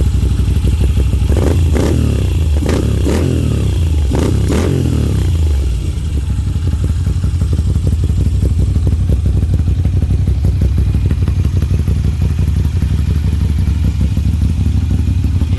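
Moto Guzzi transverse V-twin with an aftermarket Agostini exhaust, revved several times in the first five seconds and then settling back to a steady idle.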